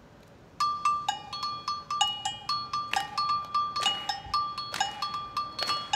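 A two-tone percussion bell played in a quick syncopated rhythm, its high and low notes alternating, starting about half a second in as the percussion intro of a wind band piece.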